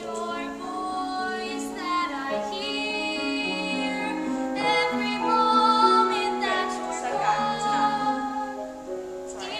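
A woman singing a slow musical-theatre song in long held notes with vibrato.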